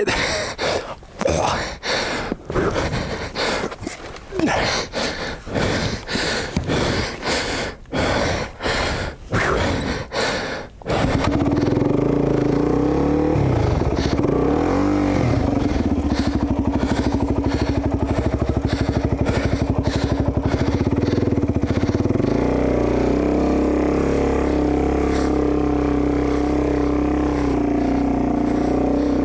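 Heavy panting breaths close to the microphone, about one a second, from an out-of-breath dirt bike rider. About a third of the way in a dirt bike engine starts up suddenly and runs steadily at idle, with one brief blip of the throttle shortly after.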